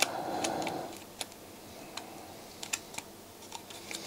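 Light, irregular clicks and ticks of the metal and plastic disc-holder mechanism of a Sony MDS-JE520 MiniDisc deck being handled and worked by hand.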